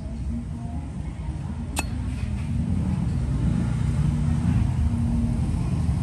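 Steady low rumble of road traffic. About two seconds in, one sharp metallic click, the snap of a Zippo lighter's lid.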